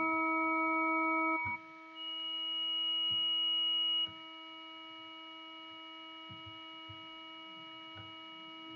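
Steady synthesized tone from AudioMulch's 10Harmonics additive signal generator: one fixed pitch with several overtones, its timbre changing as the harmonic amplitudes are adjusted. A loud high overtone comes in about two seconds in and drops away about four seconds in, leaving a quieter, duller tone.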